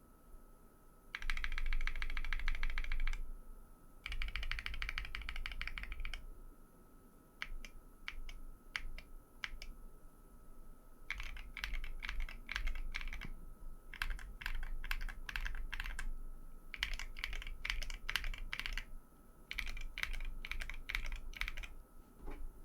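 Mechanical keyboard being typed on: lubed Tecsee Coral tactile switches fitted with MT3 FairLane double-shot ABS keycaps on an FR4-plated 60% board. Two dense runs of fast typing come first, then separate single keystrokes, then several more runs of typing with short pauses.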